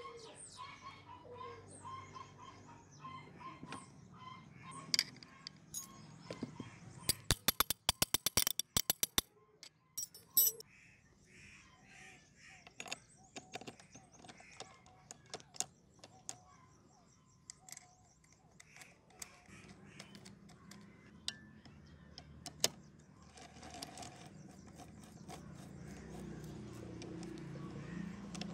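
Metal parts of a motorcycle engine being handled and fitted by hand, with scattered light clicks and knocks and a fast run of sharp metallic clicks about a quarter of the way in. Birds call faintly in the background.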